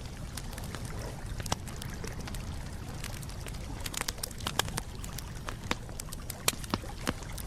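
Campfire crackling: irregular sharp pops and snaps over a steady low noise from the burning fire, with a quick flurry of pops about four seconds in.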